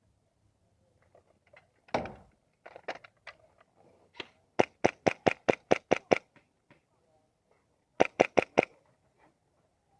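Airsoft gun firing in quick strings of sharp cracks: a run of about eight shots at roughly five a second, then a burst of four more near the end. A single heavier thud comes about two seconds in.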